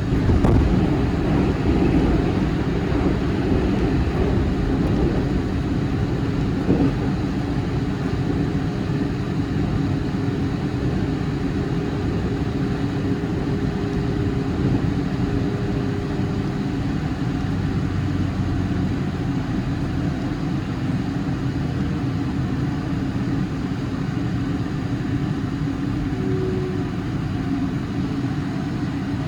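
Electric commuter train running, heard from inside the car: a steady rumble of wheels on the track with a faint motor tone that fades out about halfway. There are two brief knocks, one just after the start and one about seven seconds in.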